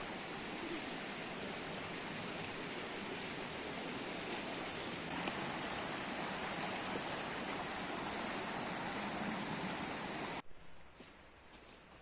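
River water rushing steadily beneath a bridge. It stops abruptly about ten and a half seconds in, leaving faint insect chirping.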